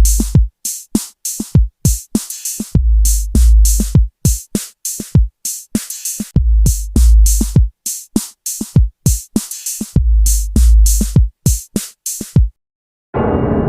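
Electronic drum-machine beat: deep bass kicks and sharp snare and hi-hat hits in a repeating pattern. The beat stops suddenly about half a second before the end, and a held, ringing tone comes in.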